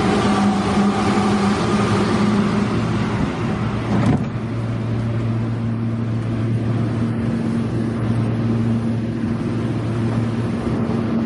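Steady vehicle engine hum with a low drone; the sound shifts abruptly about four seconds in.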